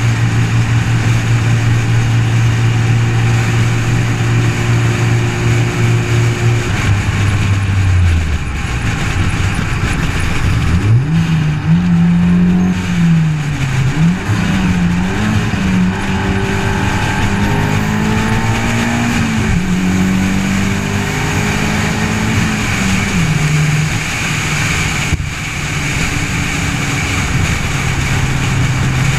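A car driving at highway speed, engine and road noise picked up outside the body: the engine holds a steady pitch, drops away about seven seconds in, then rises and falls through several rev changes before settling steady again near the end, under a constant rush of wind and tyre noise.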